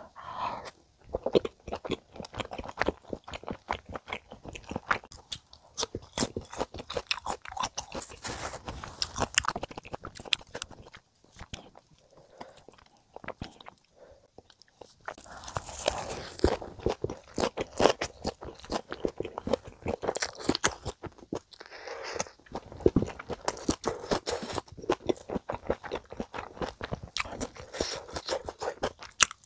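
Close-miked chewing and crunching of spicy stir-fried chicken and fresh leaf wraps: wet, crisp crunches and mouth clicks, with a quieter lull about eleven to fifteen seconds in.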